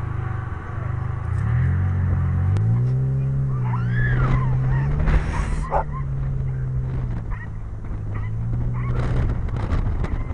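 Car engine running as the vehicle pulls away: its pitch rises about a second and a half in, then holds steady. About four seconds in, a dog gives a short high whine that rises and falls.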